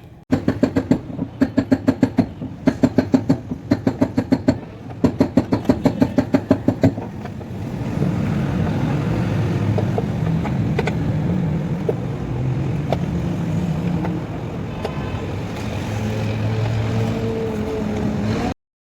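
Toyota Vitz engine, which has a rough-idle fault: fast rhythmic pulsing in short runs for about the first seven seconds, then a steady running sound that cuts off abruptly near the end.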